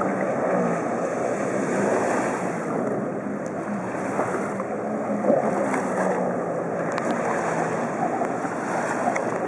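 Jet ski engine running steadily under the rush and hiss of the water spray it throws up as it carves hard turns.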